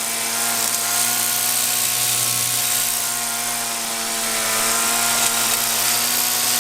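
Rover R2600 multi-tool trimmer's 25cc two-stroke engine running steadily, with a slight dip in pitch and level about four seconds in.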